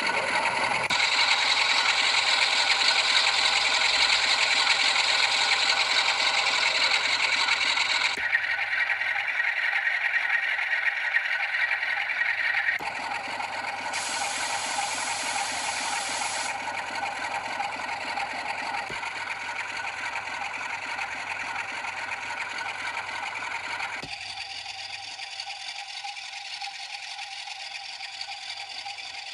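Recorded Class 47 diesel locomotive engine sound (Sulzer 12LDA28 twelve-cylinder) from a model-railway DCC sound decoder, running steadily through a series of small model-locomotive speakers. Its tone and loudness change abruptly every few seconds as the output is switched from one speaker to the next, and it gets quieter and thinner in steps toward the end.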